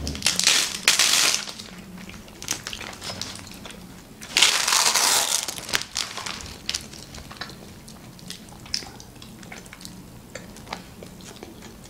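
Clear plastic film rustling and crinkling as sheets of sour fruit leather (pastila) are peeled and pulled off it, in two loud stretches, one at the start and one about four seconds in, followed by quieter scattered crinkles and clicks.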